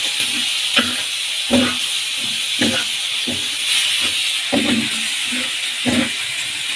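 Onion, garlic and tomato masala sizzling in oil on a flat tawa griddle, with a metal spatula scraping and knocking against the griddle about once a second as it is stirred.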